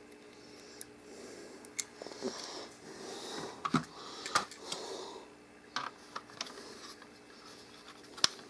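Irregular small clicks and rustling from handling camera rig parts while a video light is fitted to a shoe mount, with a cluster of clicks in the middle and a sharper click just before the end.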